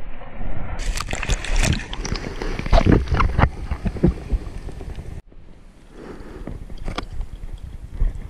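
Seawater splashing and rushing around an action camera in the surf, with wind buffeting the microphone in irregular gusts. The sound changes abruptly about a second in and drops out sharply about five seconds in.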